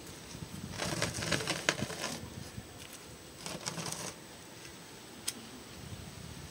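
Two short spells of rustling and crinkling, one about a second in and one near four seconds, with a single sharp click a little after five seconds.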